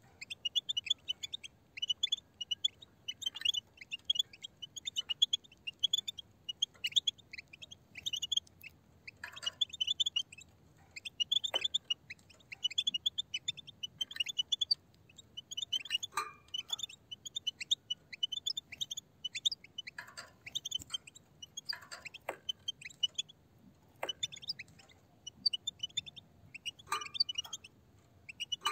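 A group of European goldfinches chirping and twittering in quick runs of high, tinkling notes, with a few short breaks.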